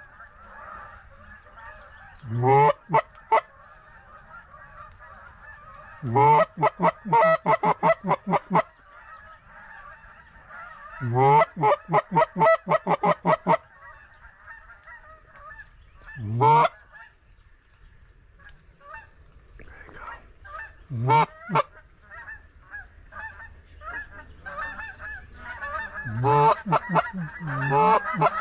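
Loud goose calls, singly and in quick runs of about three to four a second, over a large flock of geese calling constantly in the background. Each call rises sharply in pitch.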